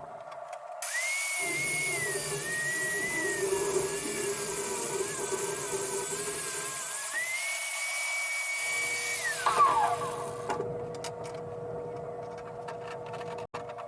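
A handheld power tool's motor running at high speed, its pitch sagging and wavering midway as if under load, then falling as it spins down about ten seconds in. Light ticking and a steady hum follow.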